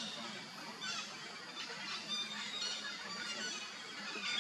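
A series of short, high-pitched animal calls, roughly one every half second to a second, over a faint steady low hum.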